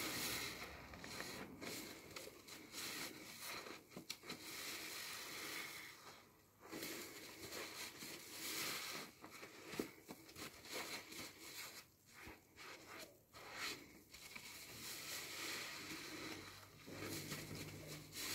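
A new car sponge squeezed and wrung by hand in a tub of thick soap foam, in repeated irregular squeezes with brief pauses between them. A low hum comes in near the end.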